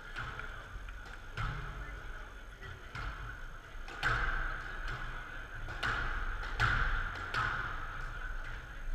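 Squash ball struck by rackets and smacking off the court walls during a rally: a few sharp, irregularly spaced knocks, the loudest clustered in the second half, over a steady background hum.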